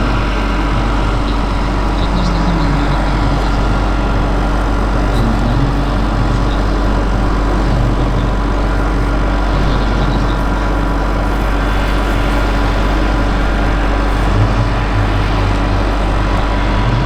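Radio-controlled scale model helicopter, a Bell 230, running steadily: a constant engine or motor note with steady whining tones over a low rumble.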